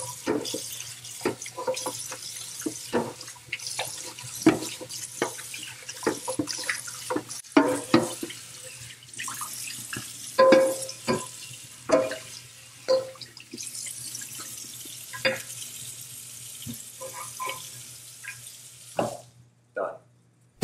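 Tap water running into a stainless steel sink while a stainless steel pan is scrubbed with a sponge and rinsed, with frequent clanks and knocks of the metal pan against the sink, some of them ringing. The water cuts off near the end.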